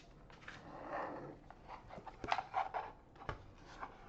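Hard plastic magnetic card case being handled and stood up on a table: a soft rustle, then a quick run of light clicks and knocks a couple of seconds in.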